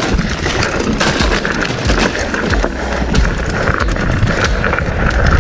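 Mountain bike rolling fast over a rough, rocky trail: a steady rush of tyre and air noise with constant small knocks and rattles from the bike.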